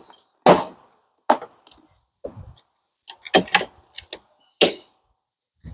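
About eight short, sharp clacks and knocks at irregular intervals as a battery booster's red clamp is worked onto the car battery's positive terminal.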